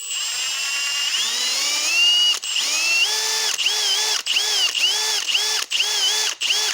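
Power drill with a 1/8-inch bit drilling through a thin metal headlight-retainer tab. The motor whine rises in pitch, then from about two and a half seconds in comes in short bursts, about three a second, as the trigger is feathered to slow the drill near breakthrough.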